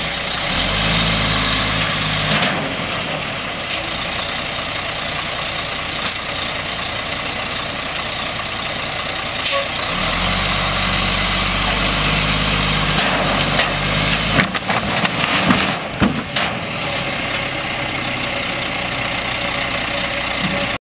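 Diesel engine of a rollback flatbed truck running, working harder twice as the truck pulls forward with its bed tilted. About fifteen seconds in, a bundle of lumber joists slides off the bed and clatters to the ground in a burst of heavy wooden knocks.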